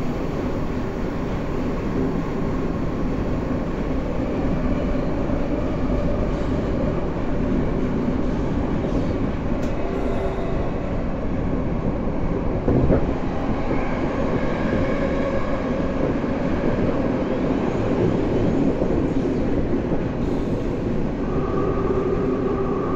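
Tokyo Metro Tozai Line subway train with permanent-magnet synchronous traction motors running through a tunnel, heard from inside the car: a steady rumble of wheels on rail. A single knock comes about 13 seconds in. In the latter half, faint steady whining tones from the motor drive come through.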